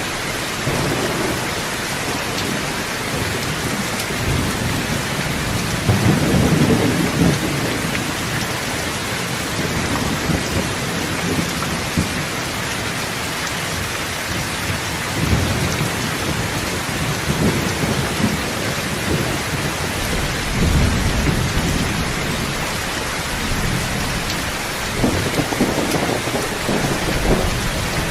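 Steady heavy rain, with low rolls of thunder swelling up several times over the rain.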